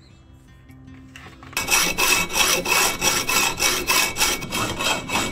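Hacksaw cutting a quarter-inch-thick copper bar, in fast, even strokes with a metallic ring. It starts suddenly about a second and a half in, after faint background music.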